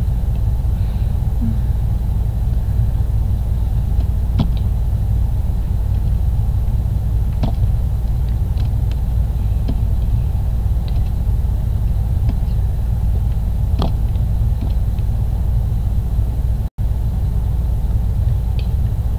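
Steady low background rumble, with a few faint scattered clicks and a split-second dropout shortly before the end.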